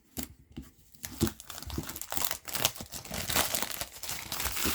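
Shipping packaging being pulled open by hand: irregular crinkling and tearing, starting about a second in and going on in quick crackles.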